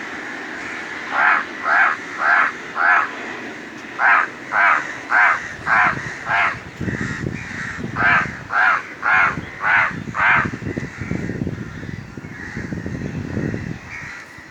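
Crows cawing in three runs of four to six calls, about two calls a second, with a pause of a second or so between runs. A low rumble of noise sits under the later calls.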